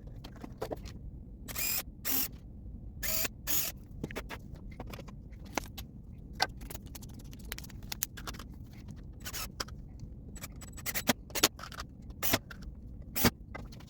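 Irregular clicks and short scrapes of hands working a pinball lamp socket and LED bulb on a display bracket, with a few louder scrapes among lighter taps.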